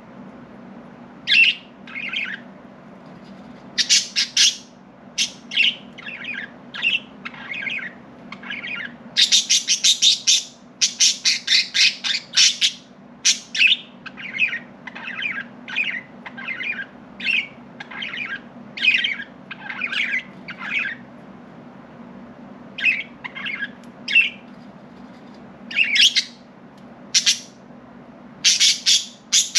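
Budgerigars chirping in a string of short, high calls, busiest from about nine to thirteen seconds in, with quieter spells around eight and twenty-two seconds.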